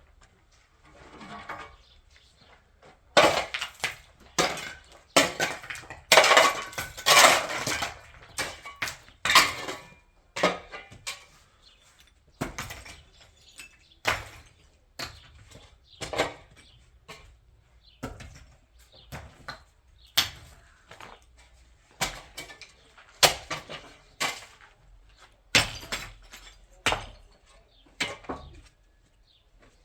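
Hard objects knocking and clattering: a dense run of scraping and clatter in the first third, then sharp single knocks about once a second.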